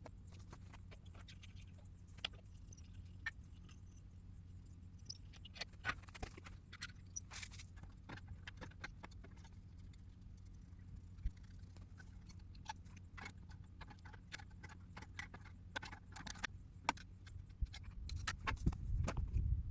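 Scattered light metallic clicks and jingling rattles over a steady low hum, getting busier near the end with a low rumble.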